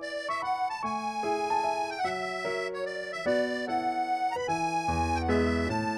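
Background music: a light instrumental tune of held notes over changing chords, with a deeper bass note coming in about five seconds in.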